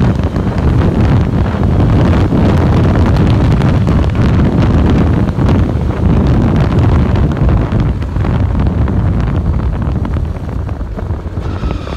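Yamaha RX-1 four-stroke snowmobile being ridden, with heavy wind buffeting the microphone. Near the end, as the sled slows, a thin whine sets in and falls in pitch: the clutch whine under engine braking that the owner cannot recall hearing before, with a new belt fitted.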